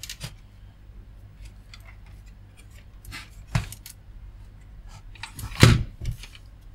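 Clicks and knocks of a computer motherboard, with a POST diagnostic card plugged in, being handled and set back down on a bench mat; the loudest knocks come near the end.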